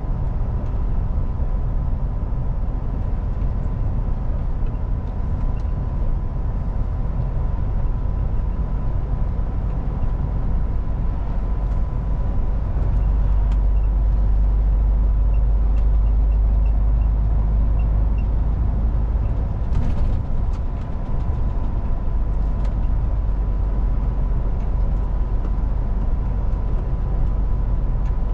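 MAN TGX semi truck's diesel engine and road noise while driving: a steady low rumble that grows louder about halfway through, dips briefly with a few clicks, then settles again. A faint steady high whine runs under it.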